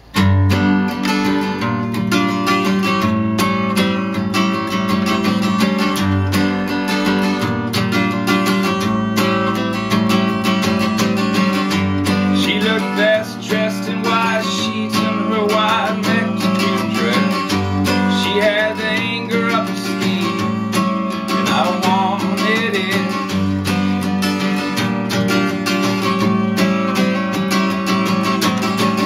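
Steel-string acoustic guitar played solo, strummed chords over a repeating bass note, starting right away. From about twelve seconds in a man's voice sings over the guitar.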